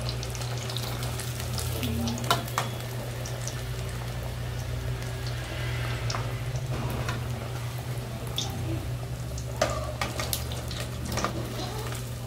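Breaded pasta squares deep-frying in hot oil, with a steady sizzle and crackle. A few sharp clicks of the metal skimmer against the pot come as the pieces are lifted out, twice early on and twice near the end.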